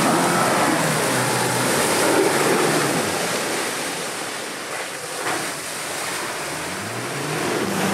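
Land Rover Defender P300's inline four-cylinder petrol engine revving up and down as the vehicle ploughs through deep, wet mud, with the tyres throwing up a loud, steady rush of splashing mud and water. The engine note rises and falls at the start and again near the end.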